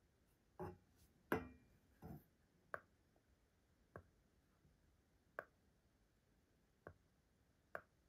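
IKEA STYRBAR smart remote being handled: a few knocks, the loudest a sharp plastic clack, then its buttons clicked five times, about once every second and a half.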